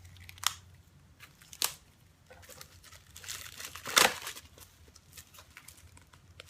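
Packaging and paper being handled: two sharp clicks, then a crinkling rustle that swells to a loud peak about four seconds in.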